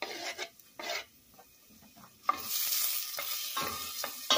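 Chopped red onions sizzling in olive oil in a stainless steel pot while a wooden spoon scrapes and stirs them. A few short scrapes come first, then after a quieter second the steady sizzle starts, about two seconds in, with more stirring strokes.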